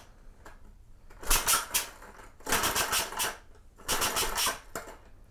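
Homemade 3D-printed compressed-air piston engine on a bottle at 40 PSI, flicked over by hand, giving three short bursts of rapid puffing about a second apart instead of running on. The engine is backfiring, which the builder puts down to an over-long piston top holding the ball valve open too far.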